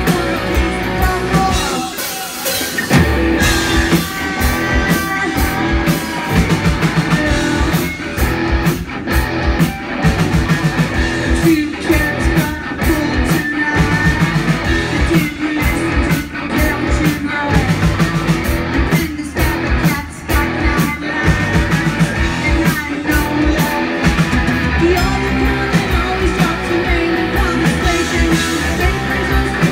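Live rock band playing loud and steady: a woman sings lead over electric guitar and drums.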